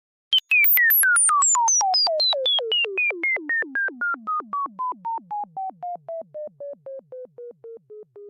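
Synthesized cartoon sound effect: a string of short electronic blips, about four a second, each dropping sharply in pitch, the whole run stepping steadily down from high to low and growing quieter.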